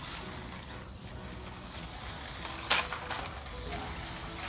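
Toy radio-controlled car's small electric motor whirring faintly, its pitch stepping up and down as it drives over concrete, with one sharp knock about two and a half seconds in.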